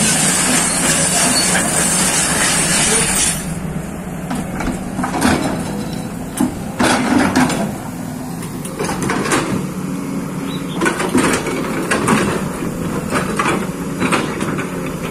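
Kobelco excavator working earth: the engine hums steadily under repeated knocks and scrapes from the digging. A loud steady hiss covers the first three seconds and cuts off abruptly.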